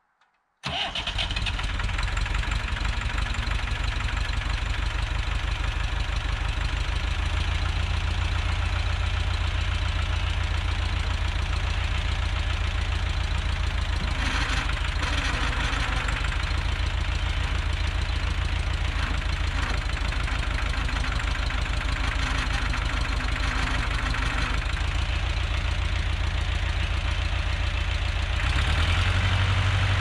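Massey Ferguson backhoe's Perkins diesel engine coming in suddenly about half a second in on a cold start, then running steadily with an even low pulse. It runs a little harder near the end.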